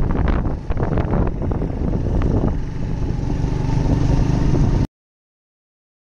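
Steady low rumble of wind buffeting the microphone, with a scatter of short clicks and clatter in the first second or so. The sound cuts off suddenly about five seconds in.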